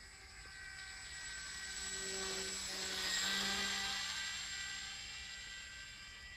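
Radio-controlled model trike flying past overhead: the steady pitched buzz of its motor and propeller grows louder to a peak a little past the middle, then fades as it flies away.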